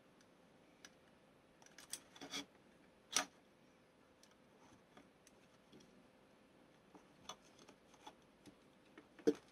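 Small plastic clicks and taps as a wire connector is handled and plugged into a model kit's lighting circuit board. The clicks are scattered and irregular. The sharpest come about three seconds in and just before the end.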